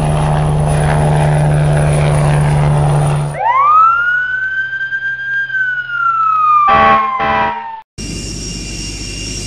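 Fire engine siren sound effect: a steady engine drone cuts off about three seconds in, then the siren winds up, holds its wail and slowly falls away, with two short horn blasts near the end. After a brief break, a jet engine's steady running noise begins.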